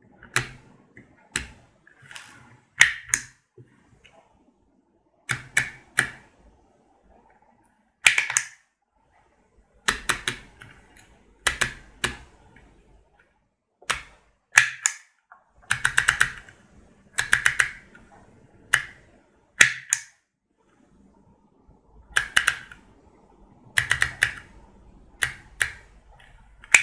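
A HEMA handheld embossing label maker being worked by hand: a sharp click or quick cluster of clicks every second or two as letters are dialled and the grip squeezed to stamp them into plastic tape.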